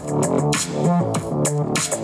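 Electronic music with a steady beat, played through the Asus ROG Zephyrus G16 laptop's six speakers in a speaker test.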